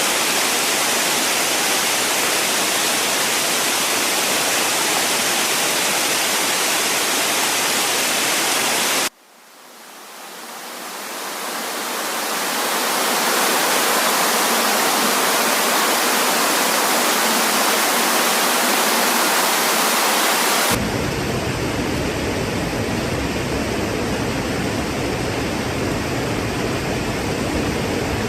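Waterfall rushing steadily as an even wash of noise. It cuts out abruptly about a third of the way in and fades back up over a few seconds. Near two-thirds of the way in it switches abruptly to a deeper, rumbling rush of falling water.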